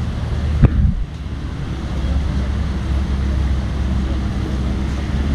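Wind buffeting the microphone, a loud, uneven low rumble, with a single sharp knock about half a second in.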